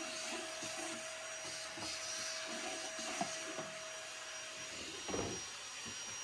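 Vacuum cleaner with a crevice tool running steadily as it sucks dust out of a wooden dresser drawer, with a thin steady whine. There is a thump about five seconds in.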